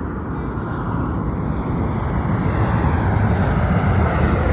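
Alaska Airlines Boeing 737 jet approaching, its turbofan engine noise a broad rumble that grows steadily louder.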